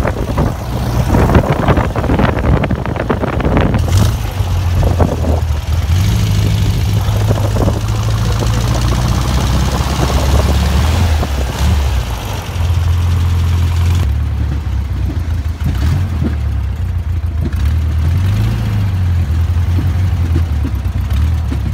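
Motorcycle trike's engine running under way, its low drone stepping up and down in pitch several times with throttle and gear changes. Wind buffets the microphone, heaviest in the first few seconds.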